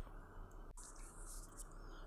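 Very faint room tone in a pause of the narration, with a single faint click about three quarters of a second in.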